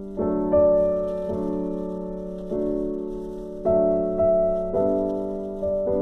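Background music: slow solo piano playing held chords, a new chord struck about once a second and left to fade.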